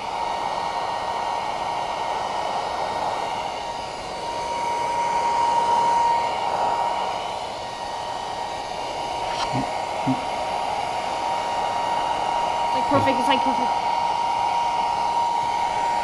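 Heat gun blowing hot air with a steady hiss and a whine from its fan. It swells a little louder about halfway through, then eases, as it heats solder-and-seal butt connectors to melt the solder inside them.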